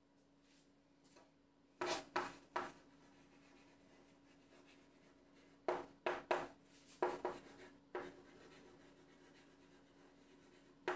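Handwriting: faint, short scratching strokes of a writing tool on a surface, in a cluster about two seconds in and again from about six to eight seconds in.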